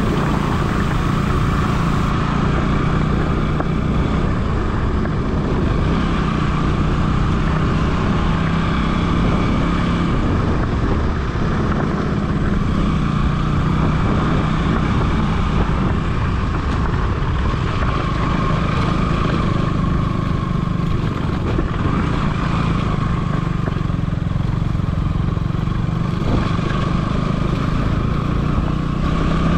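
Motorcycle engine running steadily at low speed, heard from the rider's seat, under an even rush of wind and road noise.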